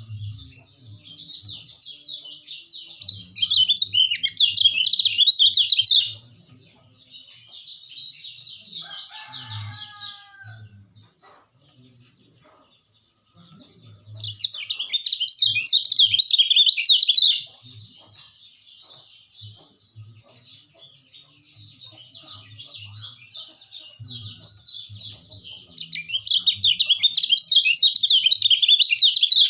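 Kecial kuning birdsong: fast, chattering high-pitched phrases in three loud bouts, with softer song between them. A faint steady high whine runs beneath it.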